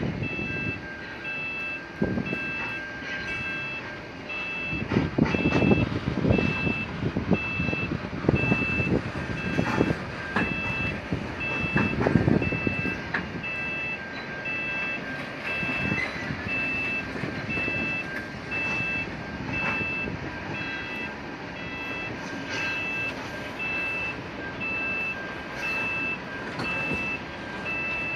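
Railway level-crossing warning bell sounding a steady beep about twice a second as a train of carriages reverses over the crossing, with low rumbles and knocks from the moving train, loudest a few seconds in and again near the middle.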